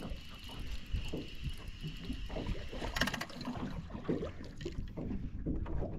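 Water lapping against a small boat's hull while a spinning reel is wound in, bringing a small whiting to the surface; a brief splash of the fish about three seconds in.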